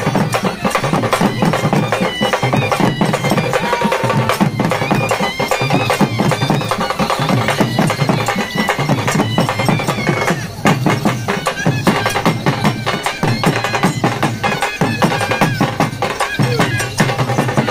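Karnataka folk drum ensemble (karadi vadya) playing loud, fast drumming, with a high, wavering pipe melody over it.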